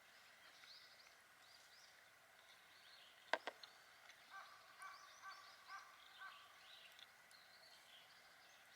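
Faint outdoor quiet with birds calling: scattered high chirps, and a run of about five short calls at about two a second near the middle. A single sharp click sounds a little over three seconds in.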